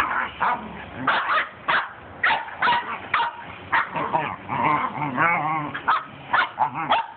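A corgi and puppies play-fighting, with a rapid run of sharp barks and yips and one longer wavering cry about five seconds in.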